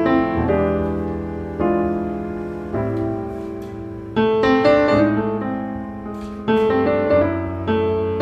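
Slow background piano music: chords and notes struck about once a second, each fading away before the next.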